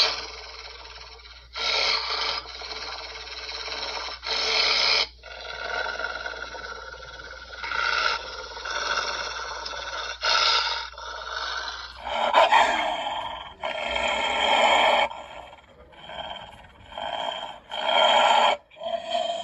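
A string of canine growl and snarl sound effects standing in for a wolf's voice, each lasting about half a second to a second and a half, with short gaps between them. About twelve seconds in, the sound switches to a different recording.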